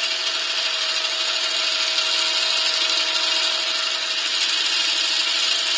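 Knurling texturing tool pressed into a yew handle spinning on a wood lathe, making a steady, even, high-pitched scraping noise as its wheel embosses a grip texture. The lathe's motor hum runs steadily beneath.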